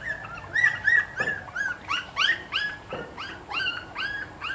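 A litter of young puppies whimpering and squeaking: a quick string of short, high, rising-and-falling cries, several overlapping, about three or four a second.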